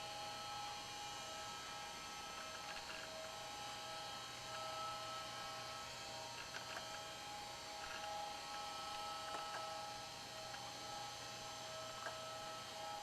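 Steady electrical hum with several thin, high whining tones, and a few faint clicks scattered through it.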